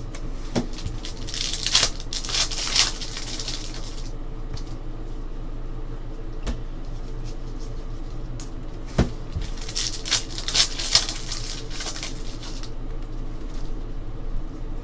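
Basketball trading cards being slid and flipped through by hand: two spells of swishing and rustling, a few light ticks between them, over a steady low hum.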